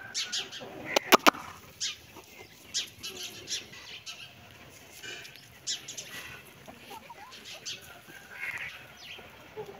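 Domestic hens clucking quietly, with three sharp clicks in quick succession about a second in.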